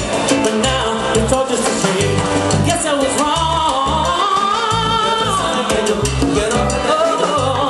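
Live salsa band playing, with a male lead singer over keyboard, congas, timbales and a repeating bass line. The vocal line comes in strongest about three seconds in.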